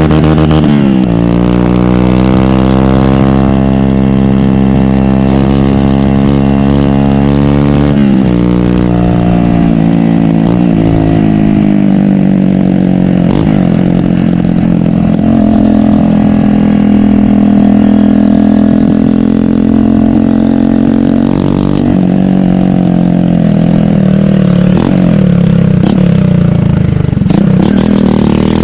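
A 150 cc motorcycle engine accelerating, its pitch climbing for about seven seconds, then dropping suddenly and running on at a fairly steady speed with small rises and falls in revs.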